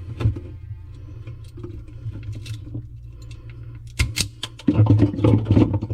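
Clicks, taps and rustling from handling small electrical wires and wire nuts while splicing a refrigerator fan motor's leads, louder and busier near the end. A steady low hum and faint music run underneath.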